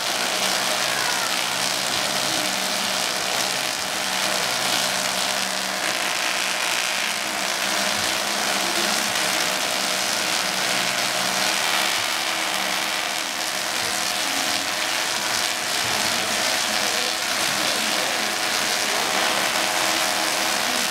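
Steady vehicle engine running noise with a continuous hiss over it.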